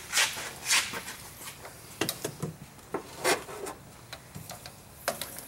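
Irregular clicks, knocks and short rubbing noises of hand tools being handled: a ratchet with extensions and a wobble socket knocking and scraping.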